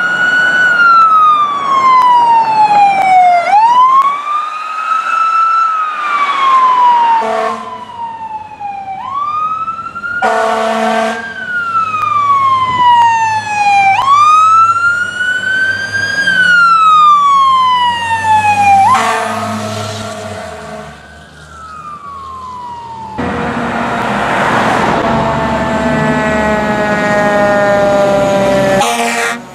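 Fire truck siren on an emergency run, wailing in long cycles: each falls slowly in pitch over about three seconds, then sweeps back up. Two short horn blasts cut in partway through. Near the end a long held tone slowly drops in pitch over the truck's rumble as it goes by.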